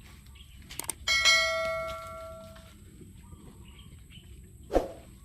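A single metallic clang about a second in, ringing on and fading over about a second and a half, like a struck piece of metal. A few light clicks come just before it, a dull thud comes near the end, and a faint steady high whine sits underneath.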